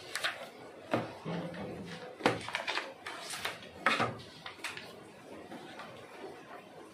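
Die-cut paper being handled on the bed of a manual die-cutting press: the sheet rustles as it is lifted and the cut circles are peeled out, with three sharp knocks about one, two and four seconds in.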